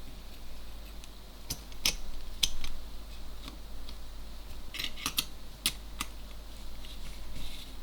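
Irregular sharp clicks and taps from small metal camera parts and hand tools being handled during camera repair work, over a steady low hum.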